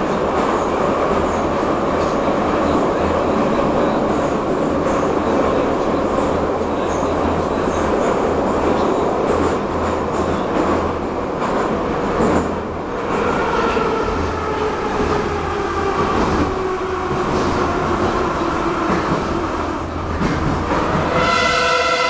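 Metro train running underground, heard as a steady rumble of wheels and running gear. Over the second half a whine slowly falls in pitch. A short sound with several stacked pitches comes near the end.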